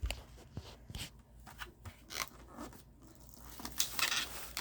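Packaged Hot Wheels diecast car being handled and turned over: light clicks, scrapes and crinkling of the plastic blister and card, getting busier near the end.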